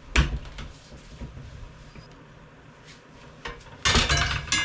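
Steel tire irons knocking and clanking against a dirt bike's spoked wheel rim while prying the tire bead off: one sharp knock just after the start, a few light clicks, then a burst of metal clatter near the end that leaves a ringing tone.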